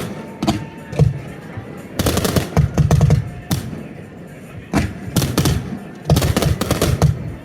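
Fireworks display shells bursting: loud bangs coming in rapid volleys, with short lulls between the volleys.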